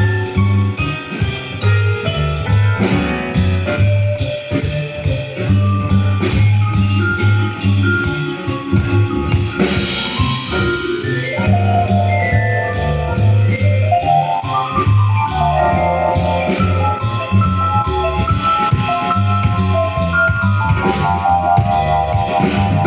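Jazz quartet playing live: drum kit cymbals keep a steady beat over a low bass line. Fast melodic runs sweep down and up several times in the second half.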